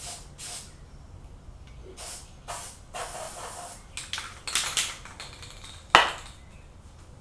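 Short hissing bursts of an aerosol spray-paint can (Krylon camouflage paint) being sprayed, one held a little longer, then a sharp click about six seconds in.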